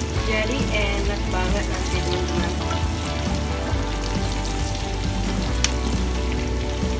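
Beef tetelan and sliced shallots sizzling in oil in a stainless steel frying pan as they are stirred with a spatula, with background music playing.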